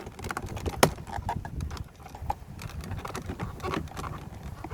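Flathead screwdriver prying a Dodge Caravan's plastic power window switch assembly out of the door trim: scattered plastic clicks and scrapes, with one sharp click about a second in.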